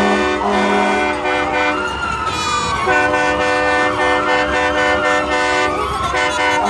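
A siren wails slowly up and down over long, held horn blasts, several tones sounding together, that stop and start again twice.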